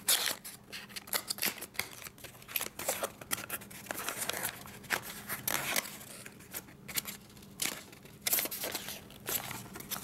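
Small cardboard product box being opened by hand: a paper seal tab pulled off and the card flaps pried apart, giving irregular scraping, rustling and small clicks of card, the sharpest right at the start.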